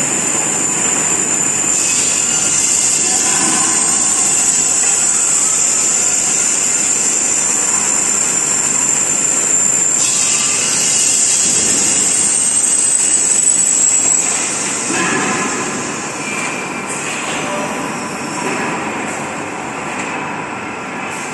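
Compressed air hissing on an LPG cylinder airtightness testing machine, over the noise of the production line. A steady high hiss cuts off abruptly about ten seconds in. A few seconds later comes a falling whistle, and the overall noise then eases off somewhat.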